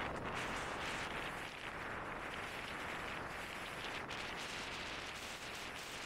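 Strong mountain wind rushing, a steady noise without a break.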